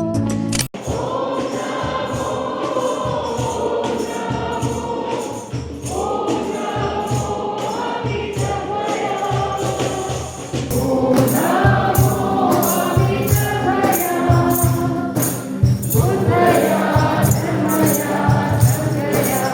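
Music: a choir singing long, held lines over a steady light percussion beat. The track cuts in abruptly just under a second in.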